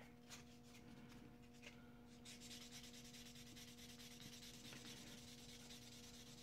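Fine fingernail buffing pad rubbed quickly back and forth over a small plastic model-kit part, roughing up the surface before priming. It makes a faint, fast, scratchy rubbing that starts about two seconds in, after a few light clicks.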